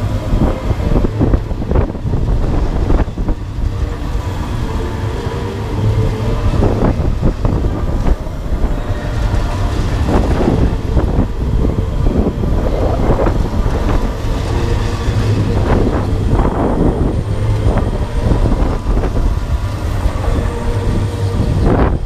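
Okamoto Monster octopus ride running, heard from aboard a spinning gondola: a steady low mechanical rumble with frequent rattling and knocking, and wind buffeting the microphone.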